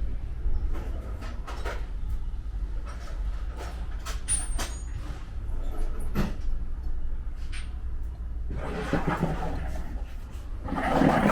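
Irregular metallic knocks and taps from panel-beating work on a car's steel body, a stroke every half second or so, over a steady low hum. The knocks get busier near the end.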